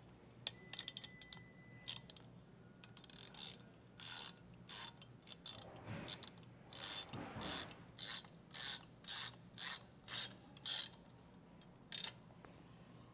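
Ratcheting wrench clicking in a run of short strokes, about two a second, tightening the bolt on a cultivator implement clamp. A few scattered light metal clicks come first, as the clamp is snugged by hand.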